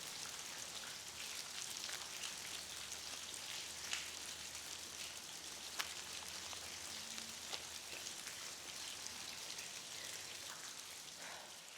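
Steady rain falling, an even hiss with an occasional sharper drop.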